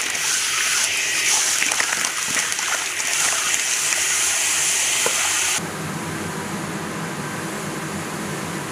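Small whole fish deep-frying in a wok of hot oil, a loud, steady sizzle. About five and a half seconds in it drops abruptly to a quieter, duller hiss.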